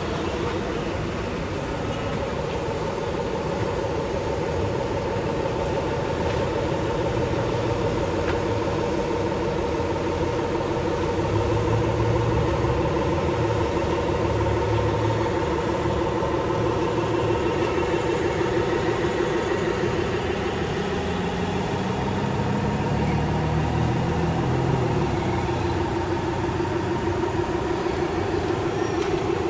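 Radio-controlled construction models' electric motors and hydraulic pump whining steadily at a constant pitch, with a lower rumble that swells and fades.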